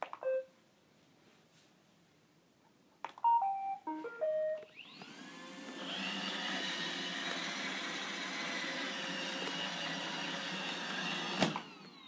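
iRobot Roomba 870 robot vacuum starting up: a button click with a short beep, then a stepped little tune of beeps about three seconds in. Its vacuum motor then whirs up in a rising whine and runs steadily, cutting off suddenly near the end.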